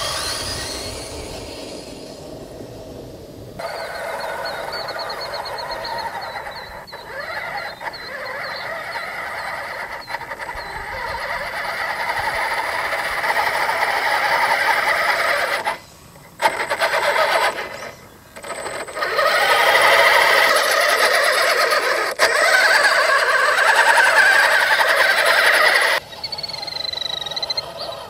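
Radio-controlled 6x6 truck's motor and gears whining as it drives over loose dirt, heard across several shots that break off suddenly. Birds chirp near the end.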